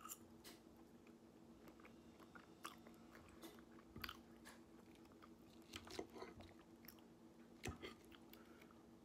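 Faint chewing of a mouthful of salad, with soft crunches and wet mouth clicks scattered through, over a low steady hum.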